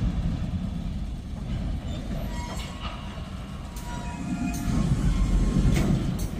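Freight train boxcars rolling slowly past: a steady low rumble of steel wheels on the rails with occasional clanks, and faint wheel squeals in the middle.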